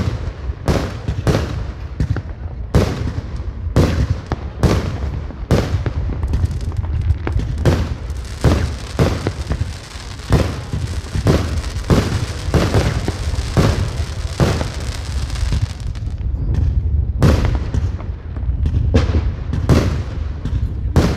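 Aerial firework shells bursting in a continuous display, about two sharp bangs a second over a constant low rumble. In the middle stretch a dense crackling hiss fills in between the bangs.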